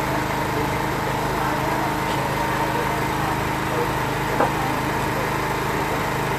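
A small engine running steadily, a continuous even hum, with a single short knock about four seconds in.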